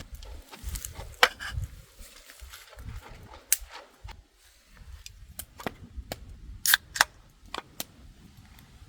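Wood campfire crackling, with sharp irregular pops and snaps, several of them loud.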